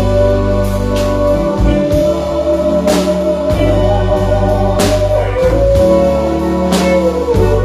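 A band playing: sustained organ chords and a long held melody note over a steady bass line, with a sharp drum hit about every two seconds.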